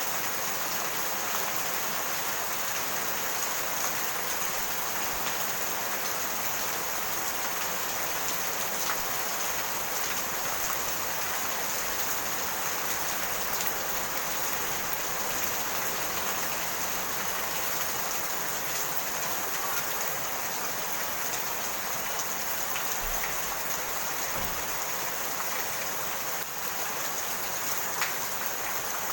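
Steady rain falling, an even hiss of drops hitting surfaces, with an occasional single louder drop.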